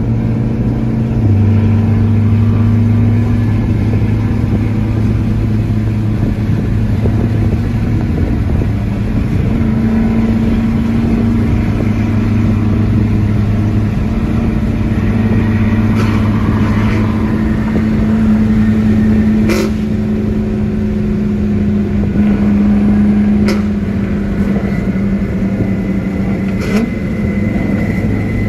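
Car engine running steadily at low revs, a deep even drone that drops a little in pitch about a second in, with a few sharp clicks in the second half.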